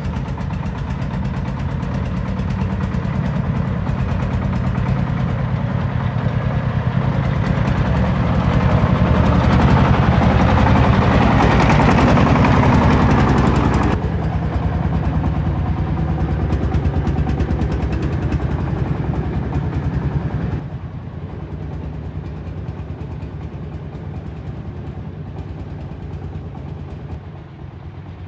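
Heavy machinery's diesel engine running, rising to its loudest about halfway through, then dropping abruptly in level twice.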